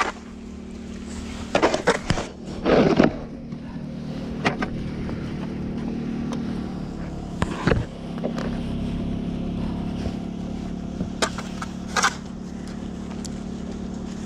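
Snow shovel scraping and knocking on pavement in a handful of separate strokes, over the steady hum of a car engine idling.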